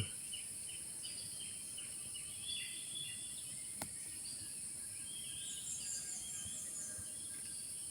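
Morning forest ambience: birds chirping and calling here and there over a steady, high-pitched drone of insects. A single sharp click about four seconds in.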